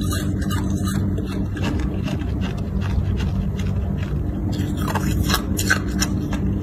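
Hard clear ice being bitten and crunched close to the microphone: a run of sharp crunches, thickest about two seconds in and again after five seconds, over a steady low hum.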